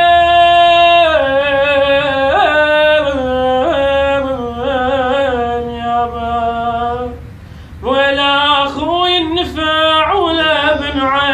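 A man singing an Iraqi lament for a lost father, solo voice. He holds one long note, then runs into a wavering, ornamented line that slides down in pitch. He breaks off briefly about seven seconds in, then carries on singing.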